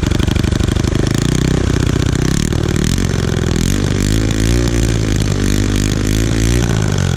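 Loud running of a Predator 212cc single-cylinder four-stroke engine freshly fitted with a billet piston, held at high speed with the revs rising and falling through the middle.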